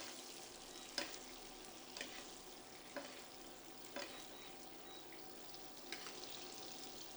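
Atlantic salmon fillet frying in butter in a pan, a steady sizzle. A light click comes about once a second as the hot butter is spooned over the fish to glaze it.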